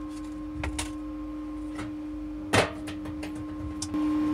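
A steady workshop hum, with a few light clicks and one sharp clack about two and a half seconds in as a steel tape measure is handled and put away. The hum gets louder just before the end.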